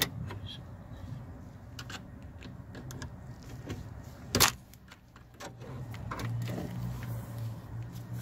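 Clicks, rattles and knocks of metal and plastic parts as the sliding door's latch mechanism and its cable clips are worked loose by hand, with a sharp clack at the start and a louder knock about four and a half seconds in. A low hum rises in the last two seconds.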